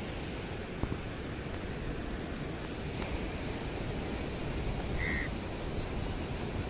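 Steady hiss of wind and surf, with one short high chirp about five seconds in.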